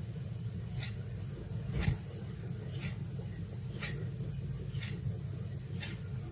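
Room tone: a steady low hum with faint, evenly spaced ticks about once a second, and a single low thump about two seconds in.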